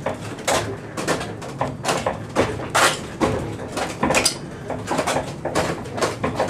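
Wooden windmill machinery turning: irregular knocks and clacks, about two a second, over a steady low rumble.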